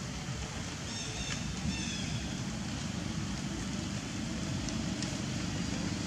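Steady outdoor background noise with a low rumble, and a few faint high chirps about a second in.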